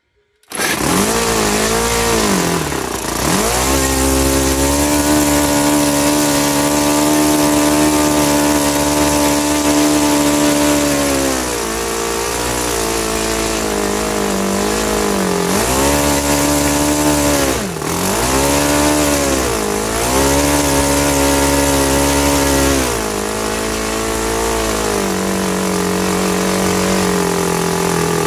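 SC 52 four-stroke model-aircraft engine on a test stand catching on the electric starter about half a second in, then running loud and steady with its propeller. Its revs dip and rise several times as the throttle is eased back and opened again. It runs cleanly: a sound, healthy engine.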